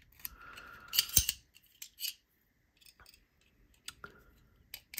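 Reate Exo-M gravity knife being worked by hand, its blade sliding into the handle with metal-on-metal clicks. The loudest clicks come about a second in, followed by fainter single clicks roughly once a second.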